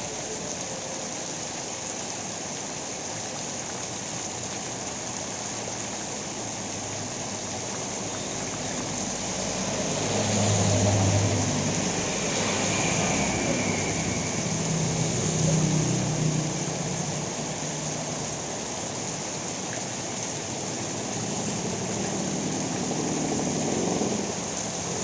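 Steady heavy rainfall, a dense even hiss, with a motor vehicle passing through it, its engine hum rising about ten seconds in and again a few seconds later before fading back into the rain.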